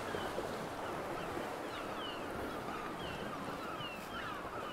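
Sea swell washing steadily over the rocks, with gulls calling above it in many short, falling cries.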